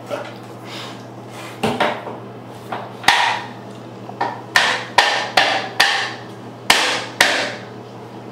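A toddler banging hard plastic beach toys against an empty acrylic bathtub: about a dozen irregular sharp knocks, starting about a second and a half in, each ringing briefly in the hollow tub.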